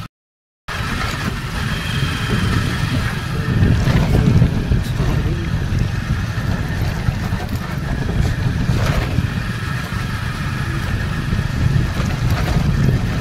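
Motorcycle riding along a dirt road: the engine running steadily under heavy low wind rumble on the microphone. A moment of dead silence comes at the very start.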